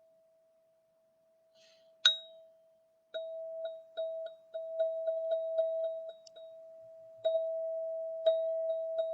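Golden ZenTube sounding one steady ringing note. A faint ring dies away, then a single sharp strike comes about two seconds in. From about three seconds in, quick repeated strikes keep the same note going, about three or four a second, with a brief lull before they start again.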